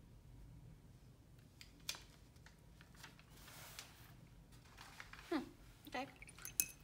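Faint clicks and soft scrubbing of a paintbrush working in a pan of a watercolor palette, then the brush dipped and swished in a water jar near the end.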